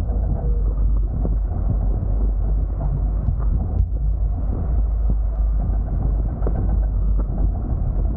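Wind buffeting the camera's microphone while sailing a Hobie Tiger F18 catamaran: a steady low rumble with a few faint ticks.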